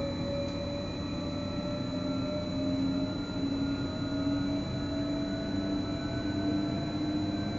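Electric commuter train running, heard from the driver's cab: a whine from the traction drive rising slowly in pitch as the train picks up speed, over rumbling rolling noise. A faint steady high-pitched tone runs alongside.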